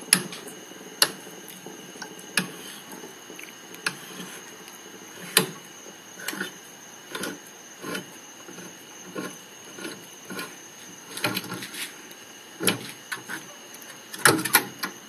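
Irregular metallic clicks and clunks of a Tuttnauer 2340E tabletop autoclave's chrome door latch handle being worked, roughly one knock every second, with a quick cluster of louder clunks near the end.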